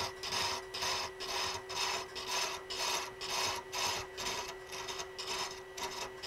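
Hand thread chaser cutting a male thread on a wooden handle spinning slowly on the lathe: evenly repeated scraping strokes, about three a second, over the steady hum of the lathe.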